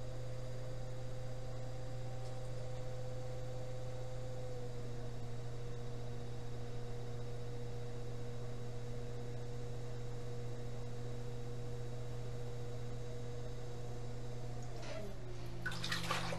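Electric potter's wheel motor humming steadily as the wheel spins. Its whine steps down slightly in pitch a few seconds in and drops more clearly near the end as the wheel slows. Just before the end there is a short clatter of scraping and knocking.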